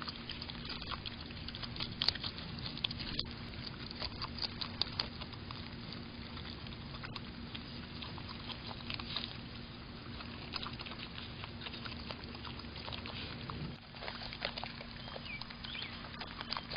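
Groundhogs chewing and biting into soft fruit: dense, irregular, wet smacking clicks, over a steady low hum.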